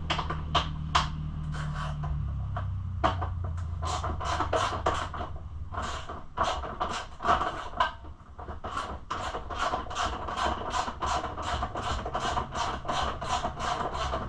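Hand ratchet wrench turning out a long seat bolt in quick back-and-forth strokes, each stroke a short rasp of ratchet clicks. There are a few separate strokes at first, then a steady run of about three or four a second from about four seconds in.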